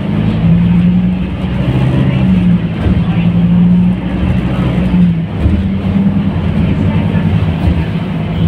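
Scania K310UB city bus under way, heard from inside the passenger cabin: its engine and drivetrain give a steady low drone that rises and falls a little in pitch, over road noise.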